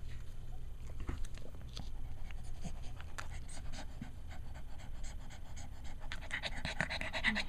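Cavalier King Charles Spaniel mother panting rapidly, growing heavier about six seconds in. This is postpartum panting while her newborn puppies nurse, which the owner says is normal after giving birth.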